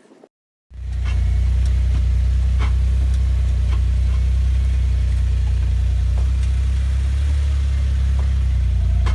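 Suzuki Jimny JB23's 660 cc three-cylinder engine running, a loud steady low rumble that starts abruptly about a second in, with a few faint clicks over it.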